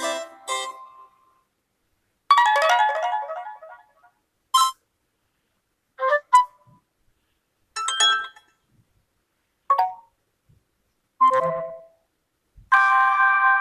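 UMX phone's built-in alert tones played one after another: about eight short electronic chimes and jingles, each a second or less with brief silences between, a different one every second and a half or so.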